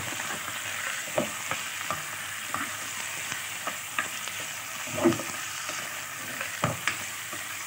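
Meat pieces frying with sliced onions in hot oil in a pot, sizzling steadily while a wooden spoon stirs and turns them. Irregular knocks and scrapes of the spoon against the pot cut through the sizzle, the loudest about five seconds in.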